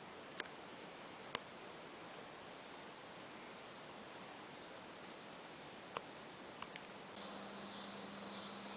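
Steady, high-pitched insect chorus, with a few short, sharp clicks. About seven seconds in, a low steady hum joins and a pulsing chirp becomes clearer.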